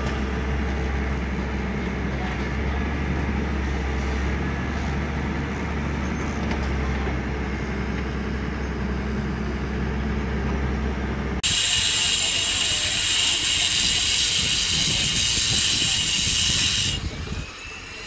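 Construction machinery engine running steadily with a low drone for about eleven seconds. Then a sudden change to a handheld angle grinder working on a concrete wall, giving a loud, high hiss, which stops about a second before the end.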